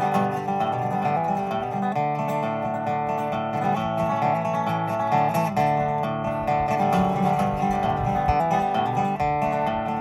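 Acoustic guitar strumming chords in an instrumental passage of a folk song, with no singing.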